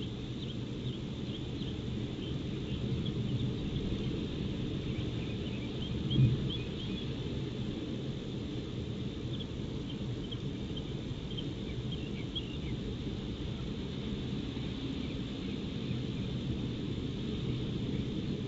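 Steady low outdoor rumble picked up by a nest camera's microphone. Faint, short high chirps are scattered through roughly the first twelve seconds, and a brief low thump comes about six seconds in.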